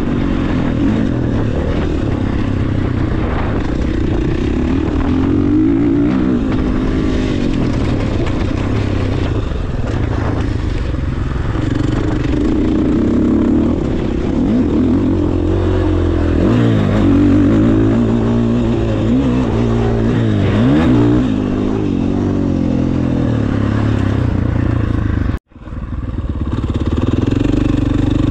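Single-cylinder two-stroke engine of a KTM 300 SX motocross bike being ridden, its pitch rising and falling again and again as the throttle is opened and closed. The sound cuts out for an instant near the end.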